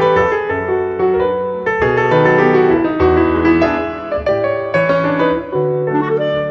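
Background piano music: a steady stream of chords and melody notes.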